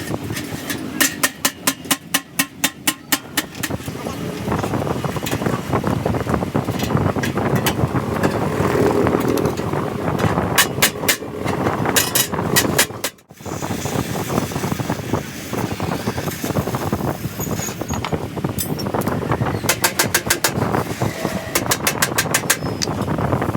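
Three bursts of rapid hammer blows, several a second, over a steady background din of workshop and traffic noise. The sound drops out briefly about halfway through.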